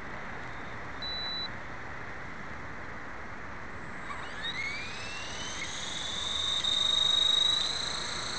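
A short high beep about a second in, then, from about four seconds, the brushless electric motor and rotor head of a 450-size RC helicopter spooling up with a rising whine that levels off near the end.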